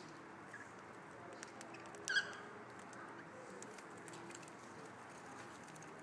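Faint light clicks and scratching, with a single short cockatiel chirp about two seconds in.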